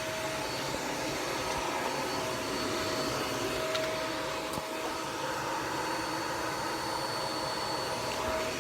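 Vacuum cleaner running steadily, a dense rushing noise with a steady high whine over it, with a couple of faint clicks partway through.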